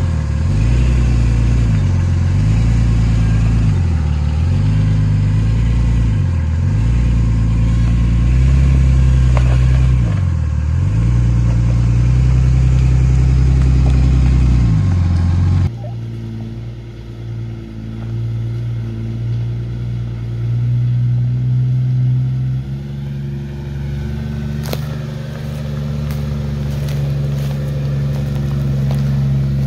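Jeep 4.0 straight-six engines crawling off-road. First the lifted Cherokee XJ on its Flowmaster exhaust, its engine note dipping and recovering every couple of seconds as it works over the obstacle. After an abrupt change about halfway through, the Grand Cherokee ZJ runs quieter and steadier, with a few sharp clicks near the end.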